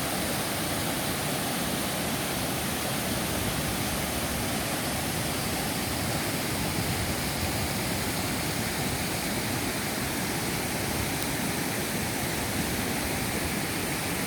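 Waterfall's falling water rushing steadily, a dense even roar with no breaks.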